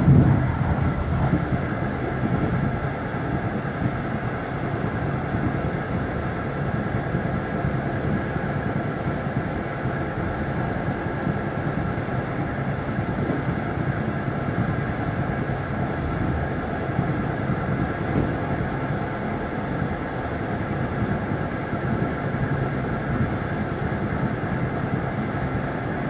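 Train running steadily along the track, heard from the driver's cab: a constant rumble of wheels on rail with a steady hum of several tones above it. A short knock comes right at the start.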